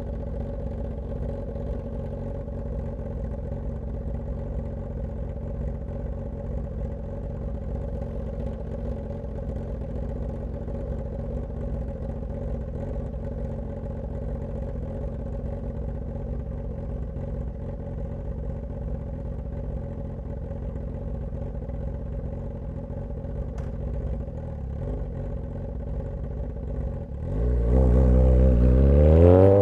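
Straight-piped Suzuki GSX-S1000 inline-four engine running steadily at low revs, then about 27 seconds in the throttle opens and the engine gets much louder, its pitch climbing as it accelerates.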